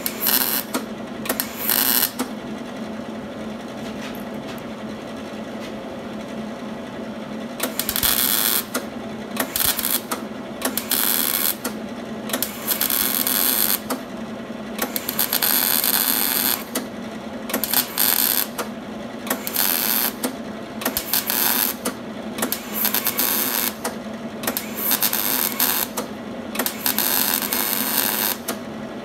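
MIG (wire-feed) welder arc crackling in short bursts of stitch and tack welds on car body sheet metal, with pauses between welds and a longer break early on. A steady hum runs underneath.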